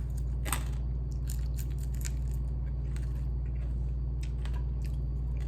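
Close-miked eating of fried chicken feet: scattered small crunches and clicks of chewing, heard over a steady low hum.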